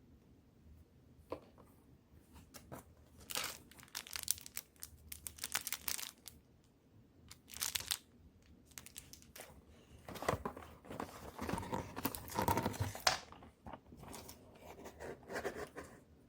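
Paper and plastic packaging being torn and crinkled by hand, in irregular bursts of ripping and rustling, with the longest, loudest stretch about two-thirds of the way through.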